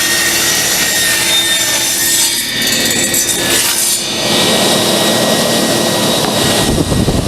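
Power saw cutting through a wooden board: a loud, continuous cutting noise over a steady motor tone, changing in character about four seconds in.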